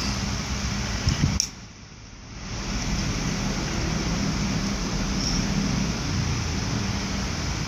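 Steady machine hum and hiss of room background noise, with a few clinks of a metal fork against a ceramic plate just over a second in. Right after the clinks the background drops away for about a second and then swells back.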